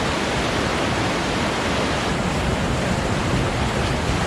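Steady rush of storm runoff flowing through a normally dry desert canyon wash.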